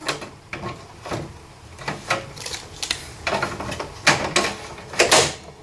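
Hard drive in its drive caddy being slid into a desktop computer case's drive bay: short scraping and clicking noises, about five of them.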